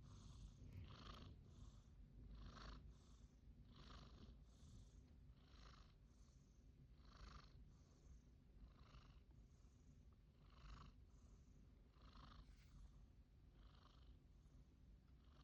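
Faint, quick snoring breaths in a steady rhythm, a soft in-breath and out-breath alternating about every 0.7 s.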